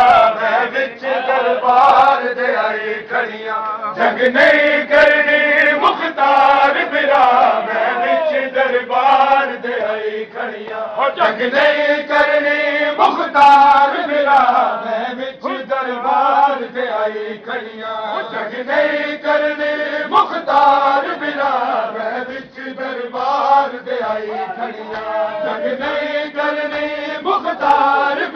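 A group of men chanting a Punjabi noha, a mourning lament, in unison, phrase after phrase.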